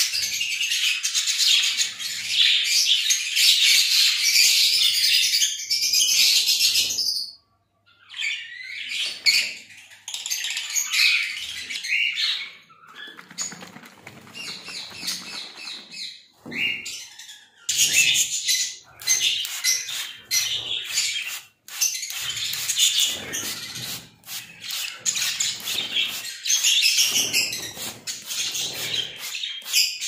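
Small caged pet parrots chirping and chattering without pause. The chatter breaks off briefly twice, and a few sharp clicks come in the second half.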